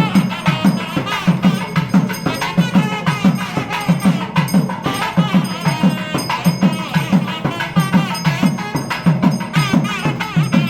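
Music: steady, fast drumming, about three strikes a second, with a wavering high-pitched melody over it.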